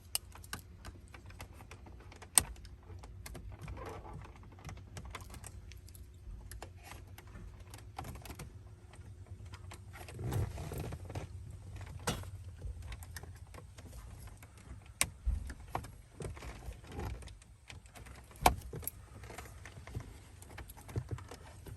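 Small plastic clicks, snaps and scrapes as a nail file is worked under a Range Rover Sport's climate-control knob and twisted to pry it off, with a few sharper snaps, over a low steady hum.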